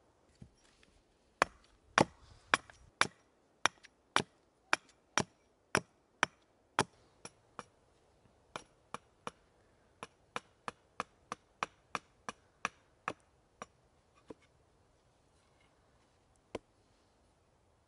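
Hatchet chopping a wooden board held upright on a chopping stump, splitting it into kindling: a run of sharp knocks, about two a second at first and quickening to about three a second, that stops about three-quarters of the way through, with one last knock near the end.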